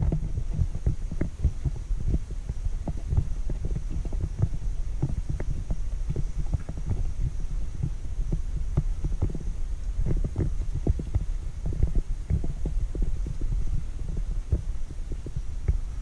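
Footsteps of several people walking on a wooden plank boardwalk, a dense, irregular run of low knocks over a steady low rumble from the handheld camera moving.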